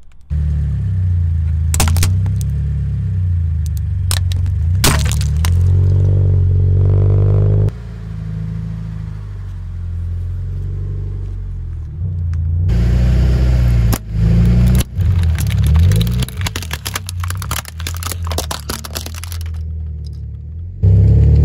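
Car engine rumbling low beside the tyre as the wheel rolls over objects, with several sharp cracks and a stretch of crunching and crackling as plastic toys and food are crushed under it.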